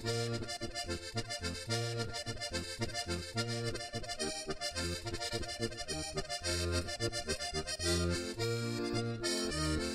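Sardinian diatonic button accordion (organetto) playing a traditional tune, with pulsing bass notes under the melody.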